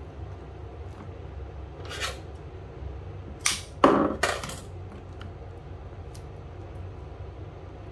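Wet handling noises as hands gut a halibut in a plastic basin of water: one short burst about two seconds in, then a cluster of three around the four-second mark, the middle one loudest, over a low steady hum.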